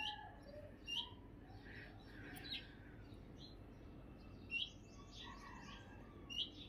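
Small birds chirping faintly in the background: short, high, downward chirps, about one a second, over a quiet steady hiss.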